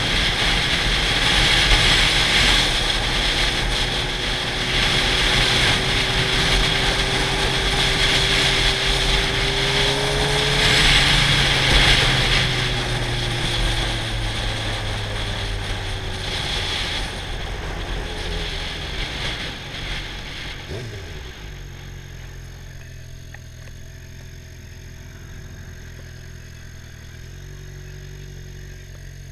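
Sport motorcycle engine under way with heavy wind noise on the microphone; its pitch rises steadily for about ten seconds and then falls away as the bike slows. From about twenty seconds in, the wind dies away and only a low, steady idle is left as it rolls slowly.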